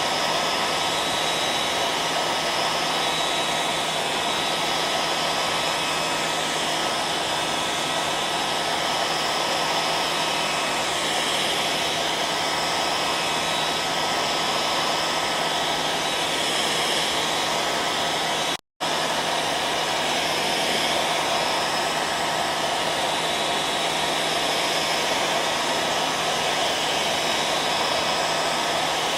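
Hair dryer running steadily: an even rushing of air with a faint constant whine. It drops out completely for a split second about two-thirds of the way through, then carries on unchanged.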